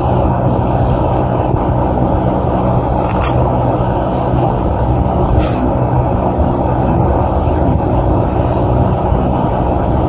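Steady low droning noise with a constant hum, like a running motor or distant traffic, that does not change. A few brief swishes cut through it as a cloth shirt is handled.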